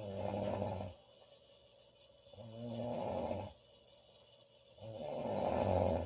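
A woman snoring loudly: three low-pitched snores about two and a half seconds apart, each lasting about a second, with quiet gaps between them.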